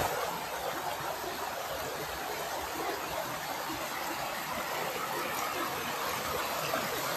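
Wadi stream running over limestone rocks and splashing down small cascades into clear pools: a steady rush of water.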